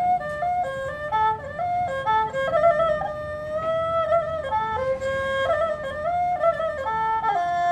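Tro khmer, a Cambodian bowed fiddle, playing a traditional melody in quick stepping notes, with one longer held note around the middle.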